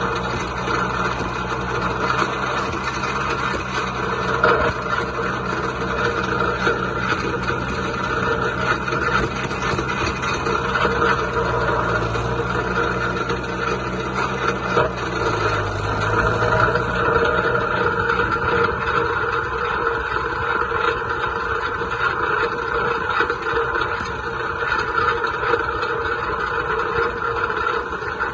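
John Deere 2130 tractor's three-cylinder diesel engine running while the tractor is driven. Its note shifts in pitch about halfway through, and the deep engine hum weakens in the second half.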